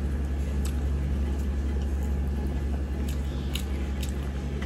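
A person chewing a mouthful of biryani, with soft wet mouth clicks every second or so, over a steady low hum.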